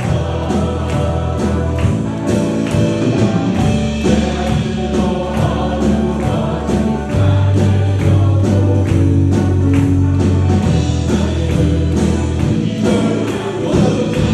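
Church praise team performing a worship song: a group of singers over a band with bass and a steady drum beat.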